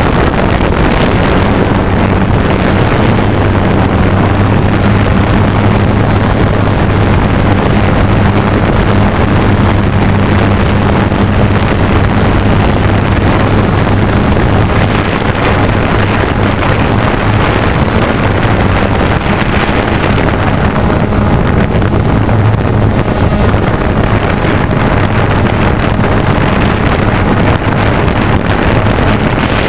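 Remote-controlled hovercraft's motor and fan running steadily close to the camera, a constant low hum over a loud rush of air, with wind buffeting the microphone.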